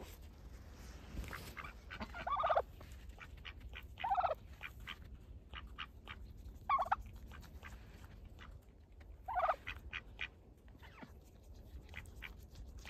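Poultry calling: four short calls, each falling in pitch, two to three seconds apart, with light scattered ticks between them.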